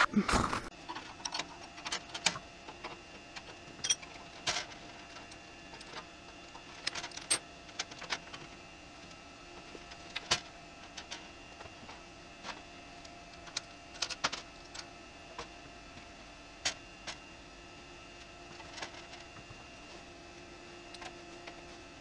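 Irregular light metallic clicks and knocks as a metal computer case frame is handled and repositioned on a milling machine table, over a faint steady hum.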